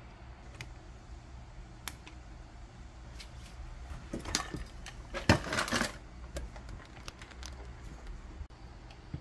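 Workbench handling noise: a few sharp clicks, then a burst of light metallic clinking and rattling from about four to six seconds in, over a steady low hum.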